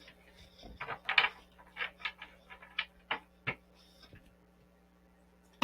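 Tarot cards and deck being handled on a table: a quick run of short clicks and rustles, then a single sharp knock at the very end.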